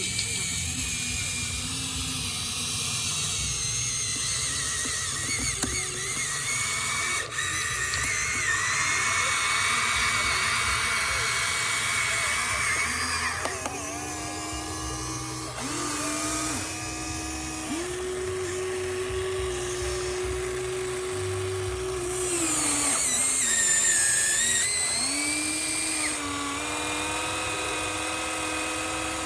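Small electric motors and gearboxes of a Huina RC excavator whining, the pitch stepping up and down several times as it works.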